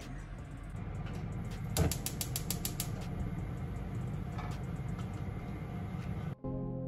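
Gas stove burner being lit: the igniter clicks rapidly, about seven clicks a second for just over a second, over a steady low hum. Music starts near the end.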